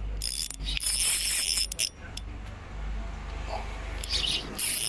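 Fishing reel on an ultralight rod fighting a tuna, giving three bursts of high-pitched whirring, the middle one about a second long, over a steady low rumble.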